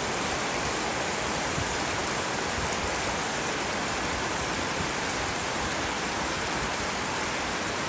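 Steady heavy rain falling, an even unbroken hiss of drops on surfaces.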